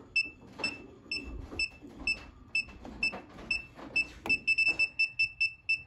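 Klein ET310 circuit breaker finder receiver beeping as it is swept down a row of breakers. Short, high, even beeps at about two a second quicken to about five a second a little after the midpoint, as the tip nears the breaker carrying the transmitter's signal.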